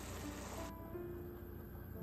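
Soft background music throughout. Under it, for the first moment, a thickened starchy sauce bubbles and sizzles in a frying pan, cutting off suddenly before a second has passed.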